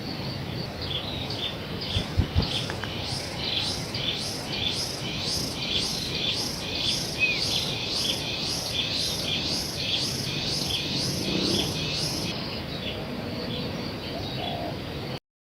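Rapid, regular high chirping, about two and a half chirps a second, that starts about a second in and stops after about twelve seconds. Two low thumps come about two seconds in, and the sound cuts off abruptly just before the end.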